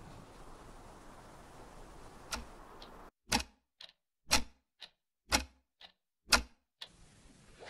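Wall clock ticking, starting about three seconds in: four strong ticks a second apart, each followed half a second later by a softer tock, against dead silence.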